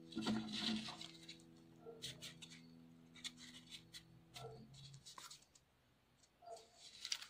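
Faint rustling and crackling of thin origami paper being folded and creased by hand, in short scattered crackles. The held notes of background music fade away over the first few seconds.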